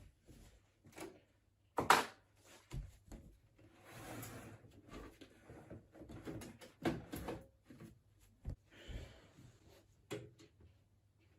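Irregular clicks, knocks and scraping of computer hardware being handled while a hard drive is fitted into a PC case, with the sharpest knock about two seconds in.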